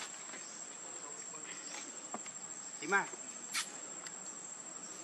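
Steady high-pitched drone of insects such as crickets or cicadas. About three seconds in there is one short call, the loudest sound, with a brief sharp sound just after it.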